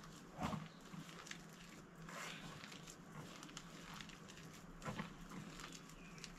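Hand mixing wheat flour into mashed banana in a steel bowl: faint rubbing with scattered light knocks against the bowl, the strongest about half a second in and again just before five seconds in.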